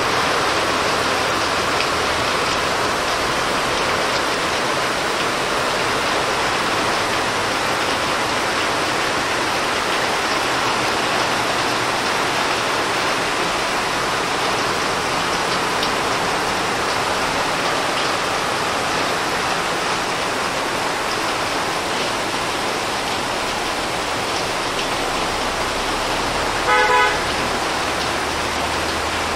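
Heavy rain pouring steadily, with a short car horn honk near the end.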